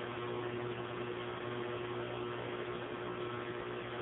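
Steady machinery hum with a constant low tone and an even background whir, unchanging throughout.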